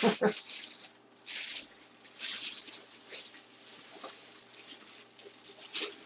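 Clear plastic bag crinkling and rustling in irregular bursts as a football helmet is worked back into it.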